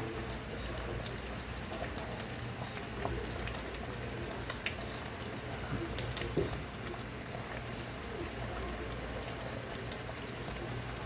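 Palava sauce simmering in the pot, a steady bubbling with small scattered pops, over a low steady hum. A few sharp clicks about six seconds in.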